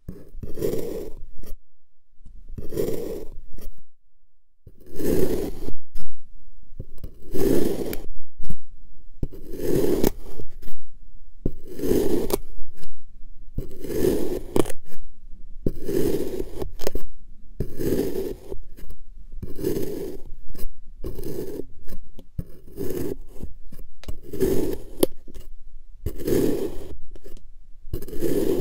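A white plastic blade slicing down through packed kinetic sand, one gritty scraping cut about every two seconds.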